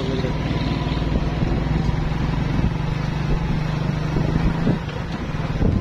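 Motorcycle engine running steadily while riding along a dirt track, a low hum with a fast, even firing pulse. About five seconds in the engine sound drops away and a few knocks follow.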